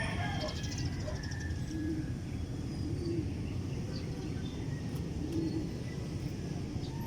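Domestic pigeons cooing: several short, low coos spaced a second or more apart, over a steady low rumble.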